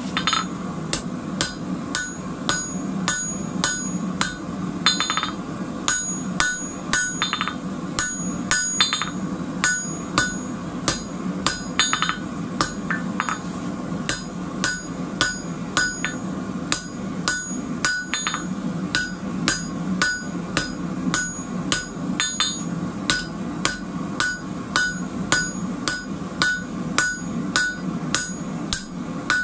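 Hand hammer striking a red-hot square steel bar on an anvil, about two blows a second, each blow ringing with a high metallic ping. A steady low hum runs underneath.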